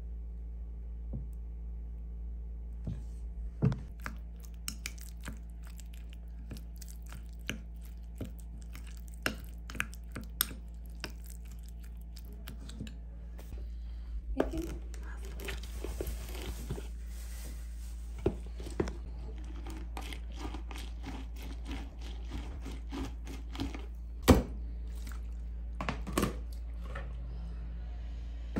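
Kitchen prep handling sounds over a steady low hum: scattered clicks and knocks of a spoon, glass and ceramic dishes on a tabletop. About halfway through comes a rougher rasping stretch of a few seconds as a lemon is twisted on a plastic hand juicer.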